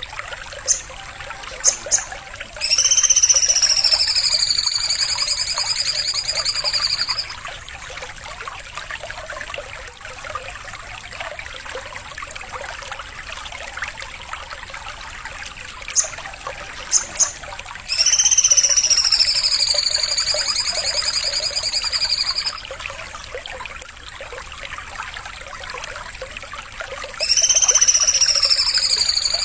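Recorded song of a sogon bird looping for song training: a few short sharp chips, then a loud, rapid trill lasting about four seconds that dips and rises in pitch. The phrase comes three times, about 15 s apart, over a steady trickle of water.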